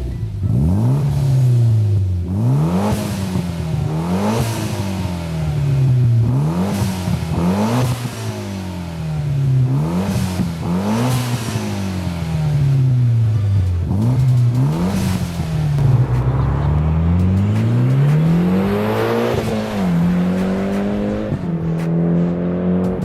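Mitsubishi Evo X's turbocharged four-cylinder engine revved through a new cat-back exhaust: about eight throttle blips, each rising and falling in pitch. Near the end it settles to a steadier, faster idle.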